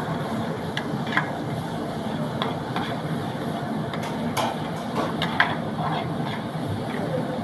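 Metal ladle scraping and clinking against a metal frying pan as chilli-garlic paste is stirred in oil, with a steady background rumble from the gas burner and kitchen. The ladle strikes come irregularly, one sharper knock about five seconds in.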